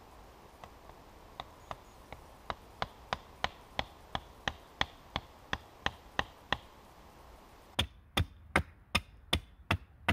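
Hatchet chopping wood against a stump used as a chopping block: a run of light, evenly spaced strikes about three a second that grow louder, then after a short pause seven sharper, louder chops.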